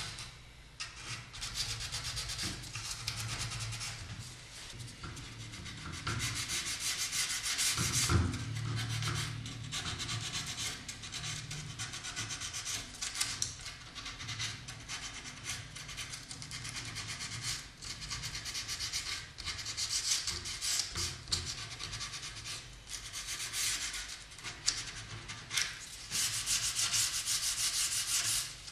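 Sandpaper rubbed by hand over carved wooden fretwork, in bursts of quick back-and-forth strokes with short pauses. A single knock about eight seconds in.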